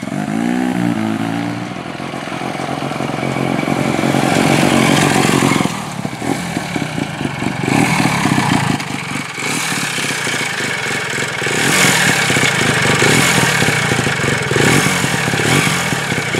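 Hercules Wankel motorcycle's air-cooled single-rotor engine running as the bike is ridden, its pitch rising and falling with the throttle.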